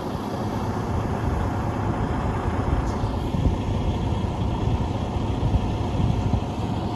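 Semi tractor's diesel engine running at low speed, a steady low rumble, as the truck creeps backward under load.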